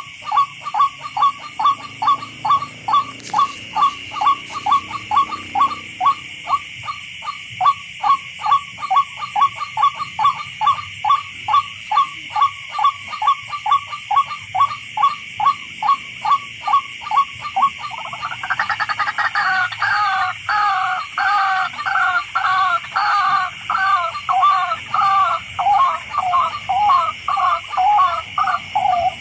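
Tikling, a Philippine rail, calling: a long run of short clipped notes, about three a second, that changes about eighteen seconds in to a fuller, doubled call about two a second.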